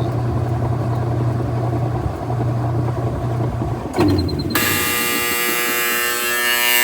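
Whirlpool direct-drive washing machine's motor running with a steady hum near the end of its final spin. About four seconds in it cuts off with a knock. Half a second later the end-of-cycle buzzer sounds one loud, steady buzz.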